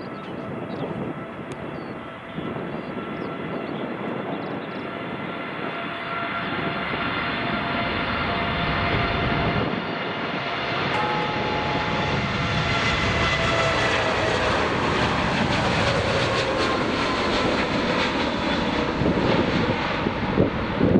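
Boeing 707 jet engines at takeoff power: a dense rumble with several held whining tones, growing steadily louder as the aircraft comes nearer. The whine tones slide slightly lower in pitch in the second half.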